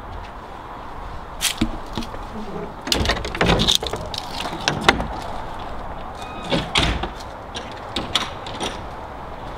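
Scattered clicks and knocks of a wooden side gate being opened and gone through, over a steady outdoor background.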